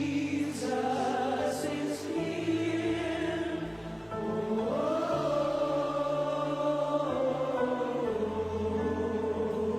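Live gospel worship music: a choir of voices singing long held notes over steady low chords, with the melody rising to a sustained high note midway.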